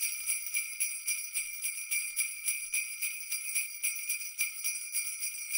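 Sleigh bells jingling, shaken in a steady rhythm.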